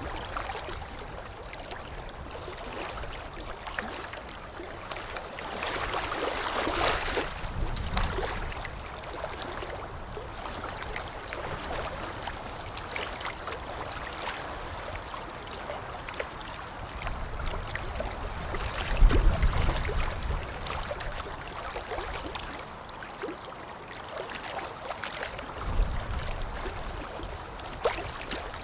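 Water of a waterfall stream rushing steadily over rocks, with a brief low rumble about two-thirds of the way in and again near the end.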